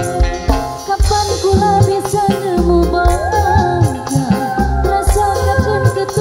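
Live amplified dangdut music: a woman sings into a microphone over a band with steady held notes and a regular drum beat, her voice coming in about a second in.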